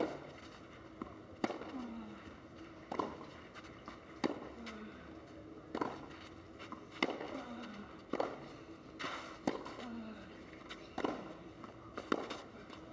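Tennis ball struck back and forth in a rally on a clay court: a sharp pop of racquet on ball about every second and a half, around ten strokes.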